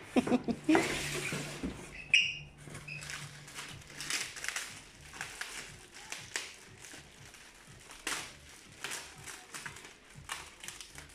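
Clear plastic bag wrapping rustling and crinkling in irregular bursts as it is handled and pulled open, loudest in the first couple of seconds while the wrapped pet sofa is lifted against the cardboard box.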